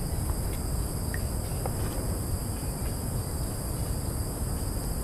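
Steady high-pitched chirring of crickets or other insects over a low rumble, with a few faint clicks.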